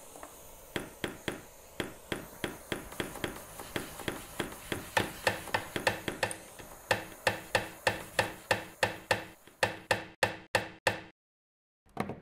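Small jeweller's hammer striking a 9ct gold wire ring on a steel bench anvil, about three sharp blows a second, some with a short metallic ring. The hammering stops abruptly about a second before the end, with one brief clatter just after.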